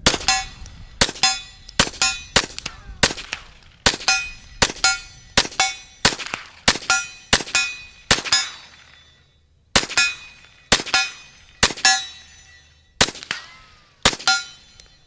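KelTec CP33 .22 LR pistol fired rapidly, about thirty shots in quick succession with a pause of about a second and a half just past the halfway mark. Many shots are followed by the brief ring of a hit steel target.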